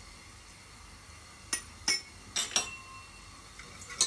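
Small steel spice bowls and a spoon clinking as they are handled: about four light clinks a little after the middle, two leaving a short metallic ring, and another sharp clink near the end.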